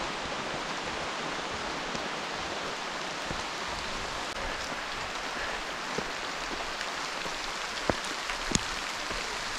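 Steady hiss of rain falling on the forest foliage, with a few sharper drop-like taps near the end.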